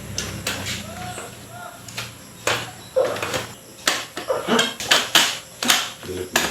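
A run of about ten sharp cracks and knocks in the second half, from hands working on a patient's body during a chiropractic adjustment. Faint murmured voice sounds come before them.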